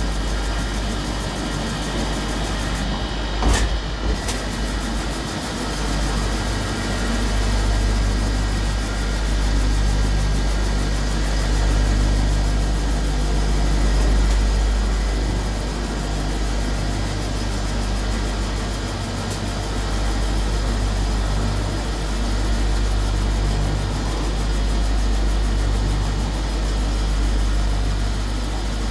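Automatic copper-cup polishing machine running: its vertical electric motors and polishing spindles give a steady mechanical hum and whir. A single short knock sounds about three and a half seconds in.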